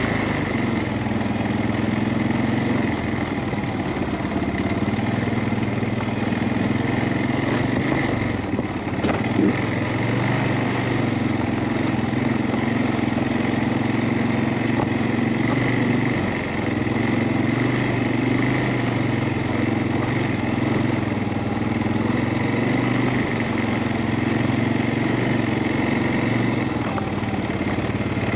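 CFMOTO ATV engine running steadily while riding a trail, with a brief knock about nine seconds in.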